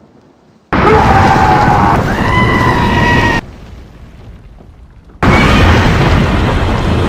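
Two very loud, harsh sneezes, each lasting two to three seconds and cutting off abruptly. The first has a drawn-out, high-pitched voiced wind-up in it.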